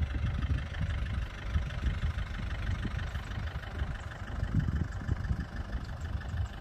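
Kubota tractor's diesel engine running steadily.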